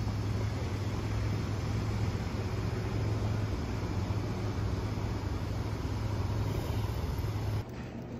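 Steady city street traffic noise: a low rumble of cars with a wide hiss behind it, cutting off suddenly near the end.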